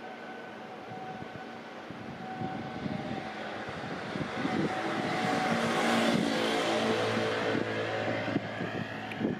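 An engine running, growing louder from about four seconds in and holding a steady pitched hum near its loudest toward the end.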